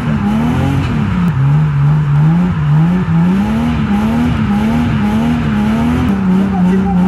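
A drift car's engine heard from inside the cabin, its revs climbing and dropping again and again as the throttle is worked through a slide, then holding steadier near the end.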